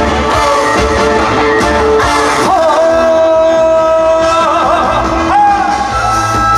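Live trot band music with a steady beat. A lead melody line holds one long note from a little after two seconds in, then slides up to a higher note.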